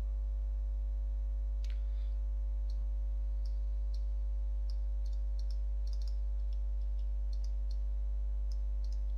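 Light computer mouse and keyboard clicks, about a dozen spread irregularly, over a steady low electrical hum.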